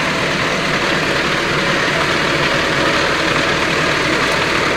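GAZ-3308 truck's diesel engine idling steadily while it supplies air to pump up the tyres.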